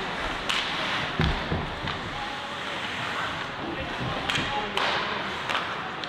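Ice hockey play: several sharp knocks of sticks and puck, over a steady hiss from the rink and the low chatter of spectators.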